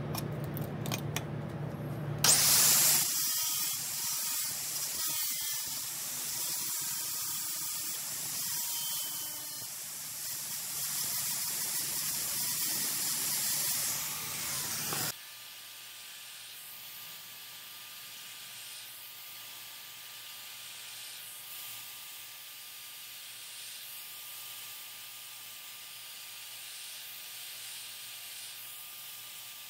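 Abrasive tool working the steel of a reciprocating-saw blade: a loud, steady hiss that starts about two seconds in and stops abruptly about fifteen seconds in, followed by a quieter steady background with a faint thin tone.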